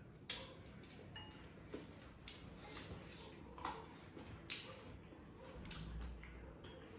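Close-up eating sounds: faint, scattered wet smacks and clicks of chewing.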